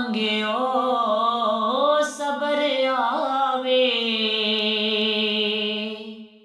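A woman's voice singing a naat unaccompanied, moving through winding melismatic turns and then holding one long note that fades out near the end.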